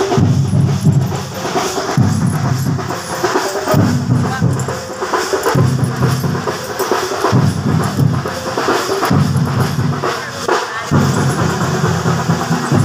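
Loud drum-led music with a heavy low beat that comes around about every two seconds, over a busy, dense rhythm.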